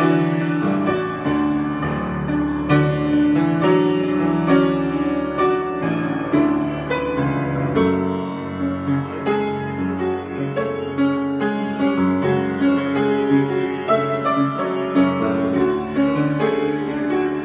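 Piano played as an improvisation: a steady flow of chords and melody notes over low bass notes held for several seconds at a time.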